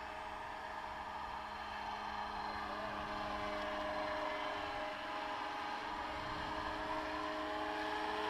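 Scale AS350 radio-controlled helicopter, 700 size, in low flight: a steady whine from its drive and rotor blades with several held tones, growing a little louder about three to four seconds in as it comes nearer.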